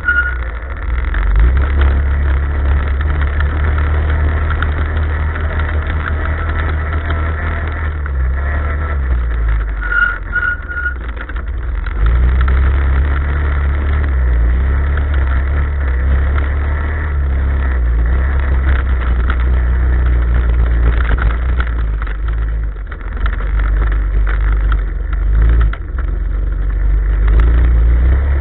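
Off-road vehicle engine running along a dirt trail, heard through an onboard camera as a steady low drone. It eases off between about eight and twelve seconds in, then picks up again.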